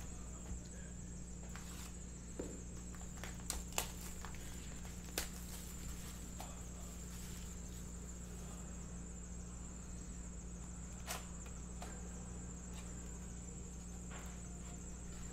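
Cardboard trading-card hobby boxes being handled: a few scattered light taps and clicks as boxes are picked up, set down and a lid is opened. Under them runs a steady electrical hum with a faint high-pitched whine.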